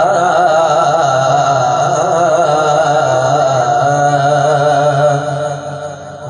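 A male voice over loudspeakers chanting devotional naat verse, holding one long, wavering, ornamented note over a steady low drone; the note fades near the end.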